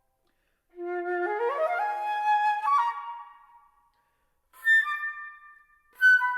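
Solo flute playing unaccompanied. It starts on a low note and climbs in quick steps into a rising run that holds and then fades. After a short pause come two sharply attacked high notes.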